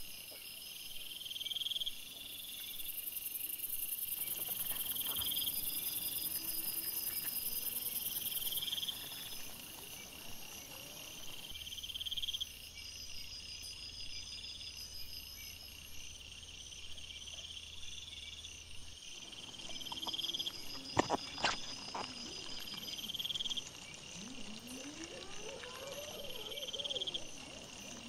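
Night-time animal chorus: a high chirping call repeating about every two seconds over a steady high hiss, with a few sharp clicks about two-thirds of the way through.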